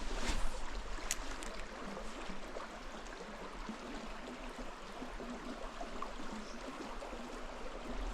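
Mountain stream running, a steady even rush of water with a few faint clicks in the first second or so.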